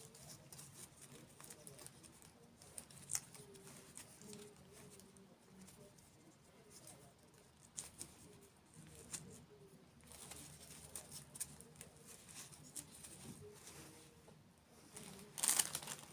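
Close-miked ASMR eating sounds: quiet chewing with scattered small crisp clicks and crackles, and a louder crackling burst near the end.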